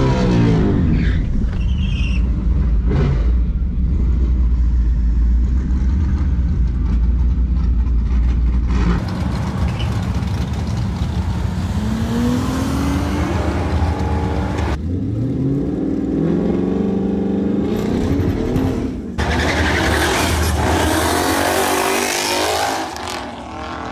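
Twin-turbocharged 5.0 V8 of a 2019 Ford Mustang GT running hard on a drag strip. For the first several seconds it is a heavy low drone heard from inside the car. After that the revs climb in pitch twice, and near the end a loud rush of engine and tyre noise passes by.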